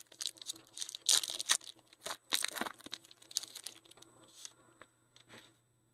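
Trading-card pack wrapper crinkling and tearing as packs are opened and cards handled, in irregular rustling bursts, loudest about a second in and again midway, fading out near the end.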